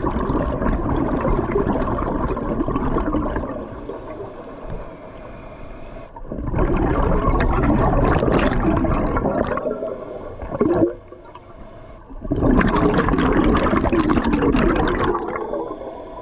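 Scuba diver's exhaled bubbles bubbling and gurgling from the regulator underwater, in three long breaths, with short quieter pauses between them.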